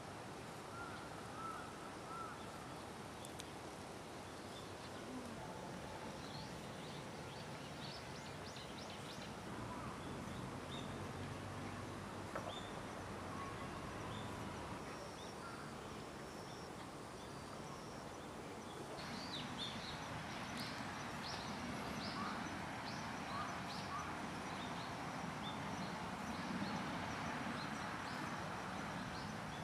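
Outdoor ambience: a steady background hiss with small birds chirping on and off, the chirps coming more often and the ambience growing a little louder about two-thirds of the way in.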